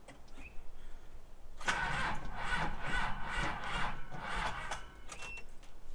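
Truck engine being cranked by its starter motor for about three seconds, pulsing evenly, then stopping without catching: a failed start on a battery pack that the owner says he didn't let charge long enough.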